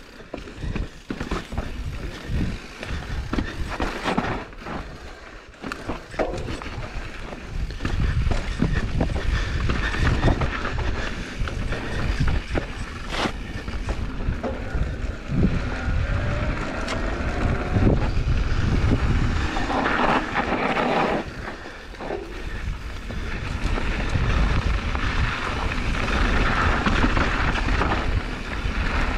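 Mountain bike riding a rough dirt singletrack: wind buffeting the helmet camera's microphone over the noise of the tyres on dirt, with frequent knocks and clicks as the bike rattles over bumps. It grows louder from about seven seconds in.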